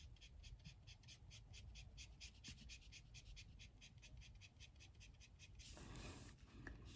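Faint scratching of a Copic Sketch marker colouring on paper in quick, even strokes at about five a second, stopping near the end.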